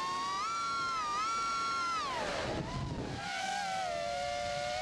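Eachine Falcon 210 Pro quadcopter's brushless motors and propellers whining in flight, the pitch rising and falling with the throttle. About two seconds in the whine drops sharply with a rush of air, then settles lower and climbs again near the end.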